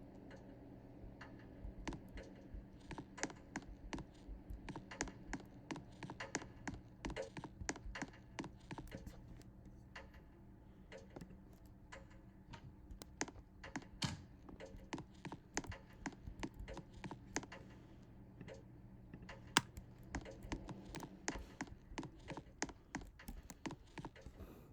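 Rapid, irregular key clicks and taps, like typing on a computer keyboard, several a second, over a faint steady low hum.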